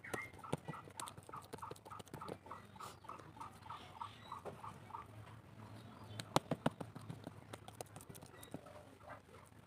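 A rapid series of short, even chirps, about five a second, from an animal call, stopping about five seconds in. A few sharp knocks follow, the loudest sounds, around six to seven seconds in.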